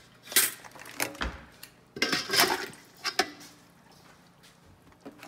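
Stainless steel stockpot and steamer basket being handled: a few separate metal knocks and clanks in the first three seconds, then only faint rustling.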